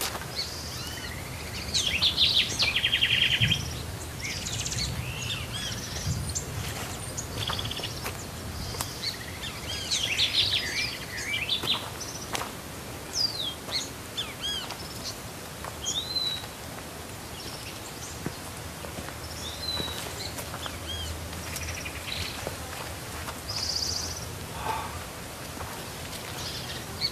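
Several birds chirping and calling, with busy clusters of chirps a couple of seconds in and again around ten seconds, over a steady low background noise.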